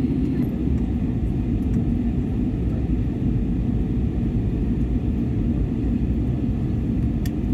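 Steady low rumble of an airliner cabin in flight: jet engine and airflow noise heard from inside the cabin during the descent to land.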